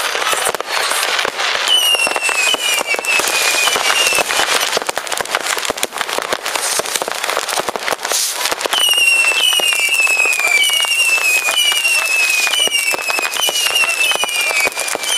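Many fireworks and firecrackers banging and crackling in rapid, overlapping succession. Over them comes a string of short falling whistles, from about two seconds in and again from about nine seconds in.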